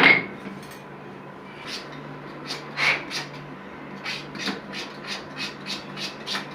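A sharp knock at the very start. From about two seconds in, rhythmic scraping strokes of a hand tool follow, about three a second, with a faint steady hum underneath.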